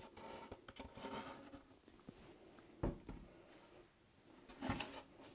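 Faint handling noise as wood glue is squeezed from a plastic bottle onto a polystyrene beehive panel and the bottle is set down, with two soft knocks, about three seconds in and near the end.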